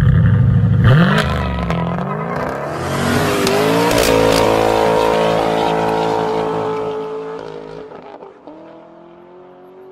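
Lexus IS 500's 5.0-litre V8 through a Kinney's Street Demon performance exhaust, revving and accelerating. A sharp rise in pitch comes about a second in, then a second rising pull that holds steady and fades away over the last few seconds.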